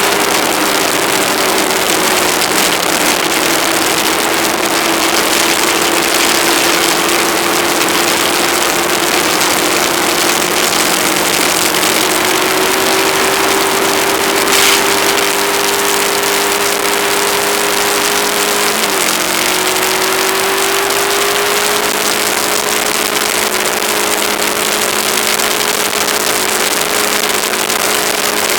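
Aprilia ETV1000 Caponord's V-twin engine running steadily under way, mixed with a loud, even rush of wind noise on the microphone. The engine pitch drifts slowly, dips sharply and recovers about two-thirds of the way through, and there is one short sharp click about halfway.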